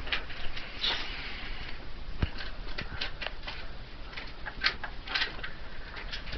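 A hamster scurrying about on a wooden desk: quick, irregular scratchy clicks and scrabbles from its small feet and claws, with a few louder clusters.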